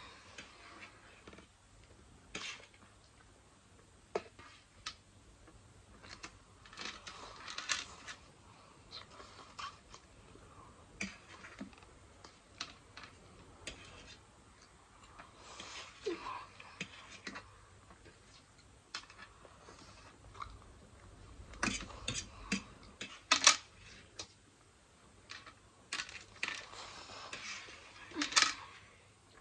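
Forks clicking and scraping on a metal baking tray of noodles, with scattered eating sounds between the clicks.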